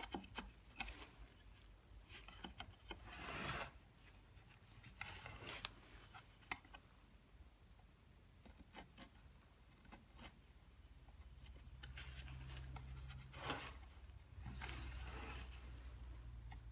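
Hand carving gouge scraping and shaving material from a carved relief in short, irregular strokes, one longer stroke about three and a half seconds in. A low steady hum comes in past the middle.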